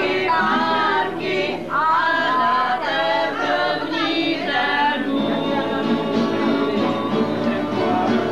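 Several voices singing together, their pitches wavering and sliding, clearest over the first five seconds and then blending into a denser, lower sound.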